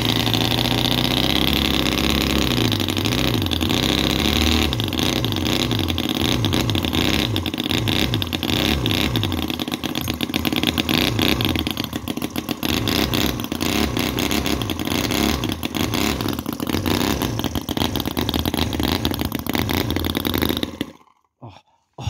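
Microcosm R28 model 45-degree V-twin petrol engine (4.3 cc) running fast and loud on the bench, its pitch shifting over the first several seconds, then stopping abruptly about 21 seconds in.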